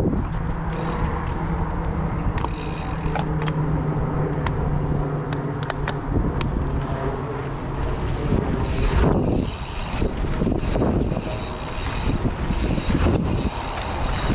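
Mountain bike ridden fast over dirt jumps: a steady rushing of wind on an action-camera microphone and tyres on packed dirt, with many sharp clicks and rattles from the bike. The rushing swells in waves about nine seconds in.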